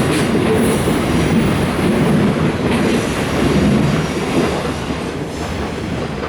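Container freight wagons of a departing freight train rolling past, the wheels clattering over the rail joints with brief high squeals, the sound easing off over the last second or so.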